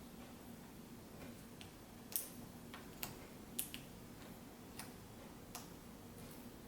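Quiet, scattered light clicks and ticks, about six of them with the sharpest just after two seconds, as the display cable connector is worked into the back of a replacement laptop LCD panel.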